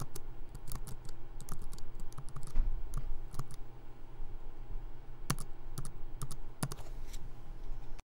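Computer keyboard typing: irregular key clicks as a short line of text is typed, with a few louder key strikes after about five seconds, over a steady low hum.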